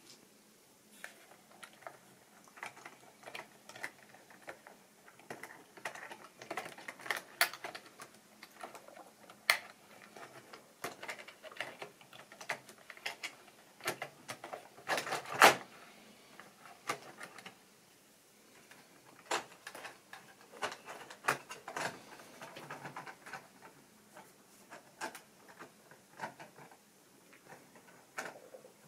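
Irregular light clicks and taps from a hand handling and nudging a model railway diesel locomotive on its track, with a louder clatter about fifteen seconds in.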